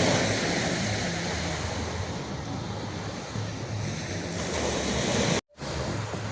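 Ocean surf washing steadily onto the beach, with wind rumbling on the microphone. The sound cuts out for an instant about five and a half seconds in.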